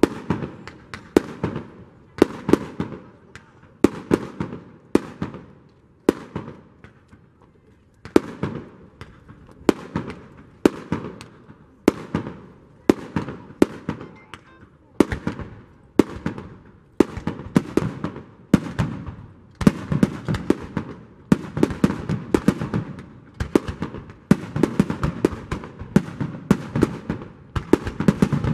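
Aerial firework shells bursting in a long, irregular series of sharp bangs, each trailing off in echo. The bangs thin out briefly about six to eight seconds in and come thicker toward the end.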